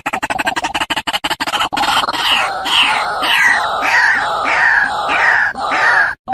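An animal calling over and over in a fast run of short squawks that fall in pitch, about two or three a second, after a stretch of rapid clicking.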